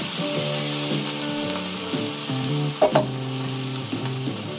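Egg and canned tuna sizzling in a frying pan, with two sharp knocks a little before three seconds in, over background music.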